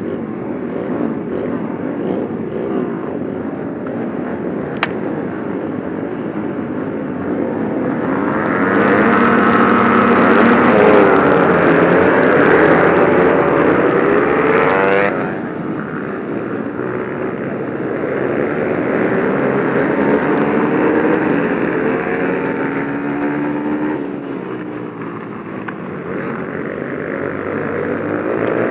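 Onboard sound of a dirt flat-track racing motorcycle at race pace: the engine revs rise and fall as it runs the oval. The engine is loudest and highest between about 8 and 15 seconds in, with a rushing hiss over it. A single sharp click comes about 5 seconds in.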